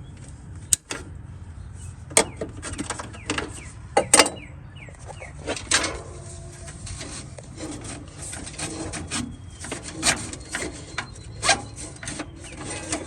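Hand work on a riding mower's gear shift cable: scattered clicks, knocks and rubbing as the cable is cut free of its wire tie and pulled loose, with a sharp click under a second in and the loudest pair of knocks about four seconds in.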